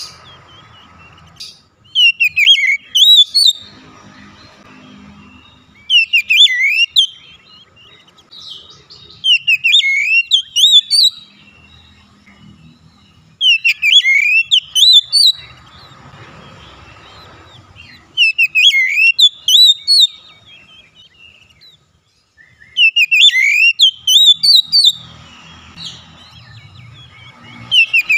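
Oriental magpie-robin (kacer) singing loudly in repeated short bursts of fast, sweeping whistled notes, a new burst every few seconds.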